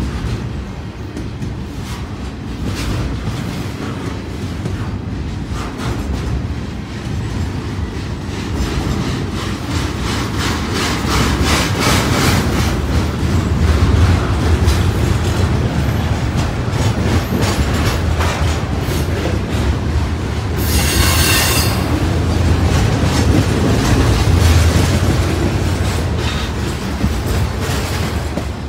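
Double-stack intermodal freight train rolling past at close range: a steady rumble of steel wheels with rapid clicking over rail joints, growing louder toward the middle. About three-quarters of the way through, a wheel gives a brief high-pitched squeal lasting about a second and a half.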